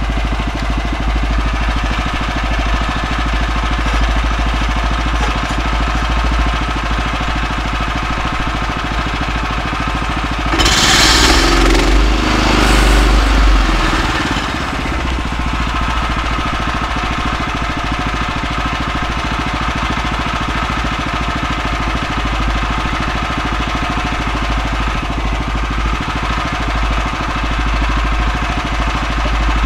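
Gas engine of a Woodland Mills HM126 band sawmill idling steadily. About ten seconds in, a louder rushing burst lasts a few seconds.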